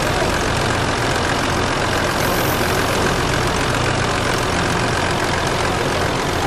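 Caterpillar telehandler's diesel engine running steadily close by as its boom works a bale grab: an even low engine hum under a broad mechanical noise, with no change in pace.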